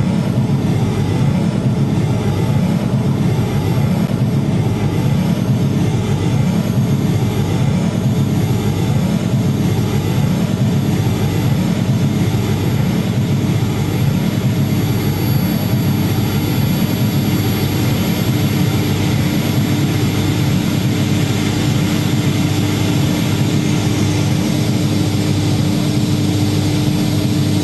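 Experimental electronic noise music played live on a table of cabled devices: a loud, dense low drone with a wavering, warbling layer above it, and a steady hum-like tone that comes in about halfway.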